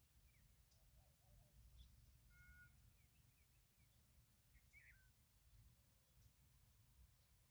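Very faint, scattered chirps and short calls of small birds over a low background rumble.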